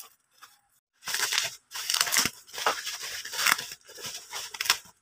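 Plastic packaging around a kitchen utensil being torn open and crinkled as it is unwrapped, starting about a second in and running on as a dense crackling with small snaps.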